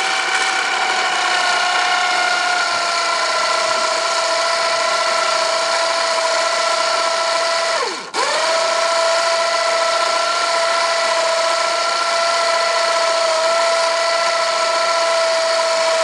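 The kayak launcher's electric winch motor whines steadily as it hauls the loaded kayak cradle up the track. About eight seconds in the motor briefly cuts out, its pitch dropping away, then starts up again and keeps pulling.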